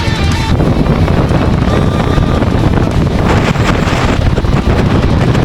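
Wind buffeting the microphone, a loud steady rumble without any distinct events, coming in as background music cuts off about half a second in.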